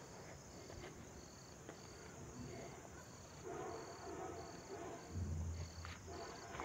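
Crickets chirping faintly, a high-pitched chirp repeating about twice a second.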